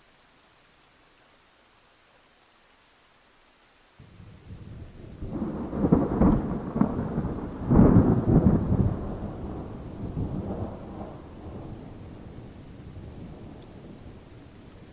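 A thunderclap about four seconds in, cracking loudest twice, then rumbling and slowly dying away. Before it there is only a faint steady hiss.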